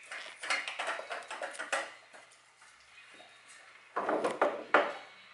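A dog eating frozen raw chicken from a stainless steel bowl, the frozen meat and his muzzle knocking and scraping against the metal in a run of sharp clicks. It goes quieter about two seconds in, then a louder cluster of knocks comes about four seconds in.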